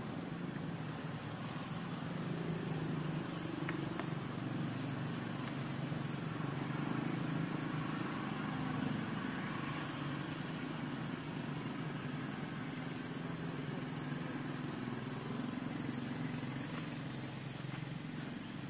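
A steady low engine hum, a little louder from about two seconds in and easing off toward the end.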